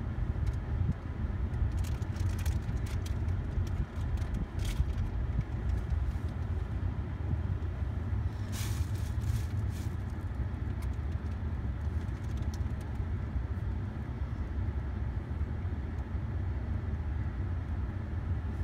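Steady low rumble of a car heard from inside the cabin, with scattered sharp clicks and crackles a couple of seconds in and again around halfway.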